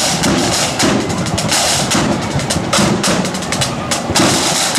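Marching band's snare drums and bass drum playing a loud, fast drum beat, the snares rattling in rolls and sharp strokes.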